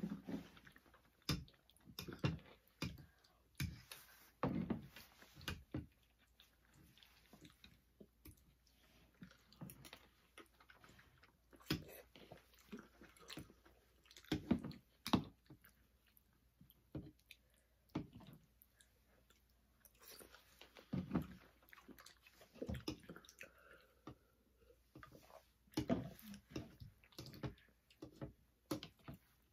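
Chewing of spaghetti, with metal forks and spoons clicking and scraping against plastic bowls at irregular intervals.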